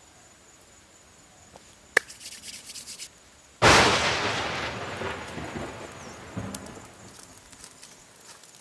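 A sharp snap and a second of crackling, then a sudden loud boom that dies away slowly over about three seconds as the pile of sticks bursts into flame and smoke.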